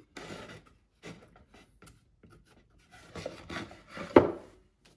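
A flexible plastic spreader scraping body filler into the neck joint of a carved wooden decoy, in several short strokes, with a sharper knock about four seconds in that is the loudest sound.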